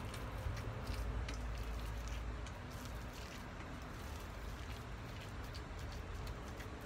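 Silicone spatula mixing seasoned ground meat in a stainless steel bowl: soft squishing with light scrapes and taps against the bowl, over a steady low rumble.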